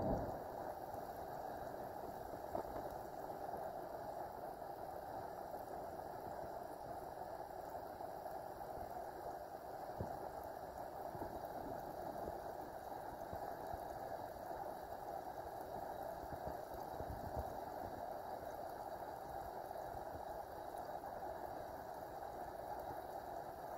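Steady low bubbling of water, with a few soft splashes as a hand stirs shallow water.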